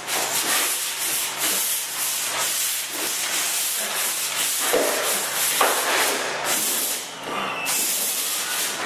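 Pole sander with 100-grit sandpaper rasping back and forth in repeated strokes over dried joint compound in a ceiling angle, with a brief pause a little after seven seconds. This is a rough sanding that knocks down the lumps before the final coat.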